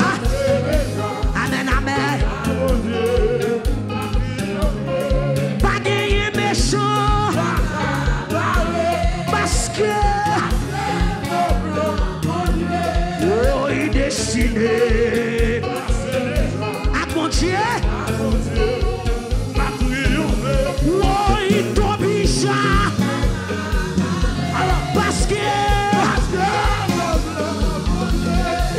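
Church praise-and-worship band playing an upbeat gospel song with a steady drum beat, with voices singing over it.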